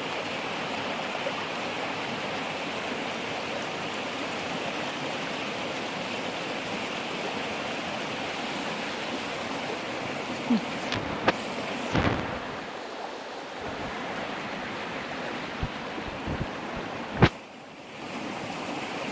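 Small waterfall and creek water rushing steadily. A few sharp knocks come about two-thirds of the way through and one loud one near the end, followed by a brief drop in the water sound.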